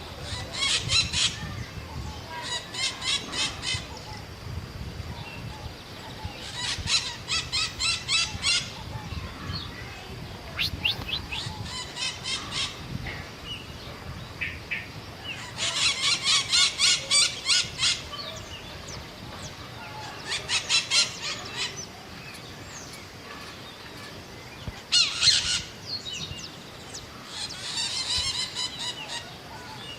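Scaly-headed parrot (Pionus maximiliani) calling: about eight bursts of rapidly repeated notes, each burst lasting one to two seconds, with pauses of a few seconds between.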